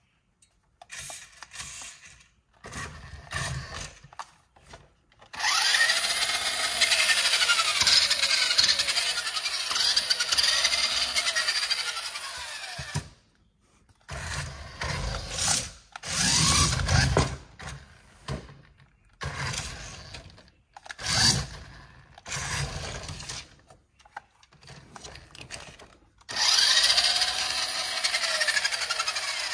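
Remote-control Lightning McQueen jumbo monster truck's electric drive motor whining in spurts, its pitch rising and falling as it speeds up and slows. One long run of several seconds comes a few seconds in, then shorter bursts, then another run near the end.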